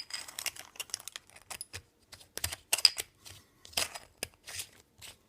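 A battery being fitted into the plastic battery compartment of a PIFCO battery-powered cocktail drinks stirrer: an irregular run of small plastic clicks, taps and short scrapes.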